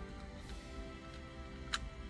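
Background music with held, sustained tones, and a single sharp click near the end.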